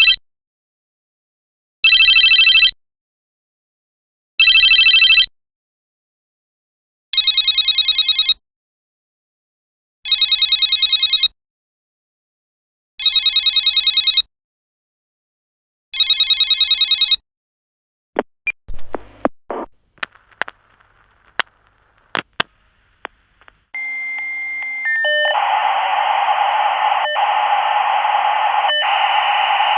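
Telephone ringing in short bursts: three rings about 2.5 s apart, then four longer, rapidly trilling rings about 3 s apart. After the rings comes a run of clicks and knocks like a handset being handled, then a steady tone that a steady hiss joins about a second later.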